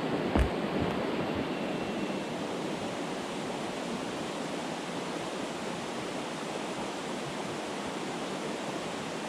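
Steady rushing of a creek, a little louder over the first couple of seconds and then even, with a soft knock about half a second in.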